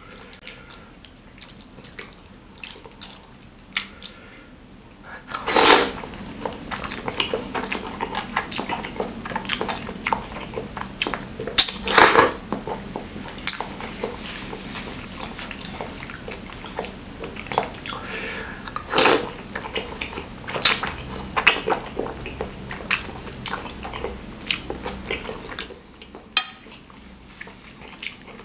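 Close-miked eating of spicy soupy noodles with meatballs: wet chewing and squelching, the fork clinking and scraping in the bowl, and loud noodle slurps, three of them standing out about six, twelve and nineteen seconds in.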